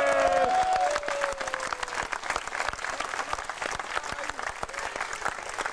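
Crowd applauding, many hands clapping at once. A drawn-out voice from just before dies away within the first two seconds.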